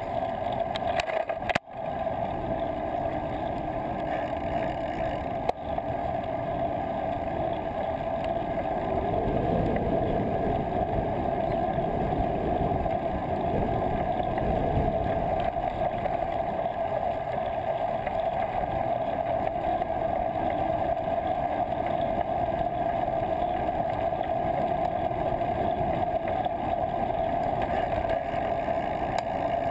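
Wind and road rumble on the microphone of a bicycle-mounted camera while riding: a steady rush with a constant droning note, the low rumble swelling for a few seconds in the middle. The sound cuts out briefly about one and a half seconds in.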